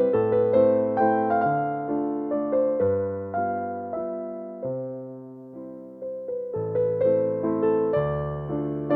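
Background music: a soft piano melody over low held notes, each note struck and fading, getting quieter about halfway through and then picking up again.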